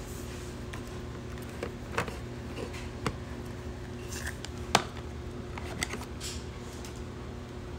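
Scattered clicks and taps of small plastic nail-gel jars being handled in their cardboard box, with the sharpest click just before five seconds in, over a steady low hum.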